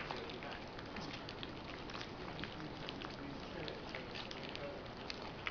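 Golden retriever puppies eating soft mushy food from stainless steel saucer pans: a dense, irregular patter of wet smacking and lapping clicks. One sharp knock comes right at the start.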